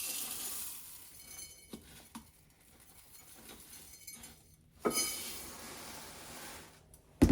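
Dry instant rice being measured and poured into a dish, a hissing pour with light glass clinks. The main pour starts suddenly about five seconds in and fades over a couple of seconds.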